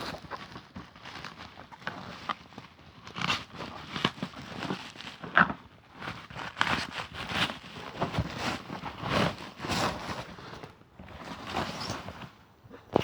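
Irregular clicks, knocks and rustling, with no motor running.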